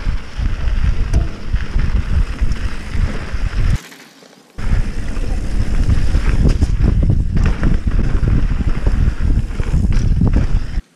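Mountain bike ridden fast down a rough dirt trail: wind buffeting the camera microphone over the rumble and rattle of the tyres and bike on rocks and roots. There is a brief lull about four seconds in.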